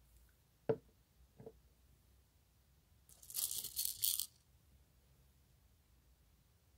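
Two light knocks, then about a second of crinkling plastic, the sound of small craft decorations being handled in a plastic packet while filling a resin mold.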